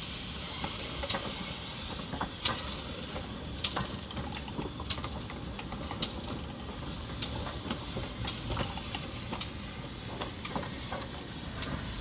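GWR 2800 class 2-8-0 steam locomotive 2807 and its tender rolling slowly past, with a steady hiss of steam. Sharp metallic clicks and knocks come about once a second from the moving wheels and motion.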